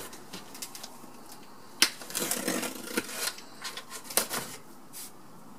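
Cardboard shipping box being handled and its packing tape picked at by hand. A sharp knock comes about two seconds in, followed by scraping and rustling of cardboard, with another click around four seconds in.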